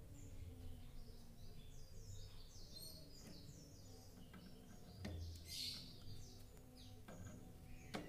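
Small birds chirping and twittering faintly, in many short high calls, with a few light clicks of pliers working the cage wire.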